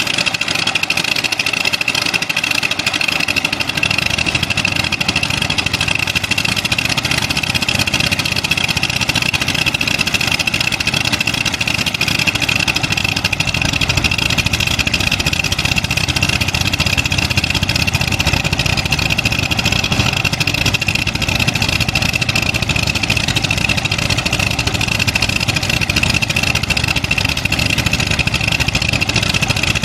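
Kobelco SK200 hydraulic excavator's diesel engine running steadily under working load, with a steady high whine over the engine note.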